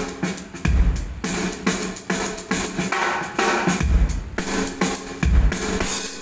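Drum-heavy music played loud through a stacked PA sound system with CT Sound Strato 18 subwoofers, with a few deep bass thumps standing out.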